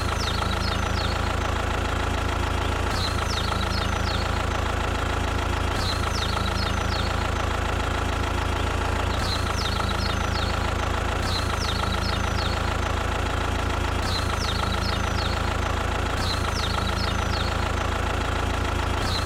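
Engine of a mini bulldozer idling at a steady pitch and level, with a knocking rumble and no rise or fall. Faint short high chirps come and go every few seconds above it.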